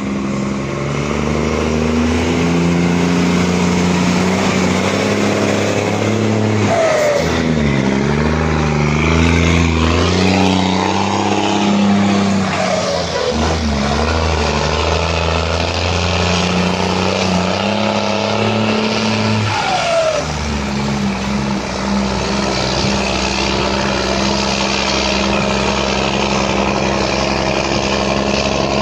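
Ford Cargo bitruck's diesel engine running with a loud, rumbling exhaust note. Its pitch dips and climbs a few times partway through, then holds steady.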